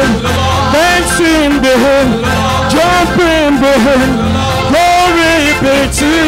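Church worship music: voices singing a gospel song over band accompaniment, with a low bass note that recurs about every two seconds.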